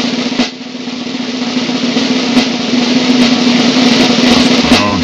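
Snare drum roll building steadily in loudness, with a brief drop about half a second in.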